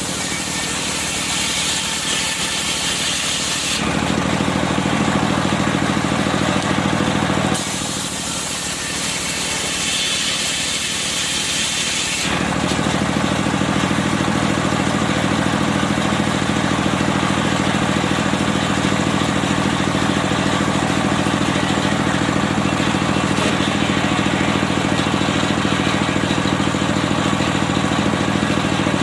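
Engine-driven circular sawmill running steadily. In the first twelve seconds there are two stretches of loud high hiss, broken off abruptly, as the saw works through medang wood.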